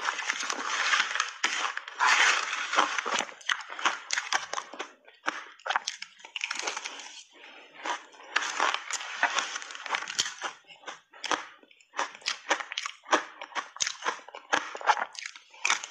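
Close-up chewing of crunchy ice chunks coated in milk powder: a rapid run of sharp cracks and crunches, broken by short pauses between bites.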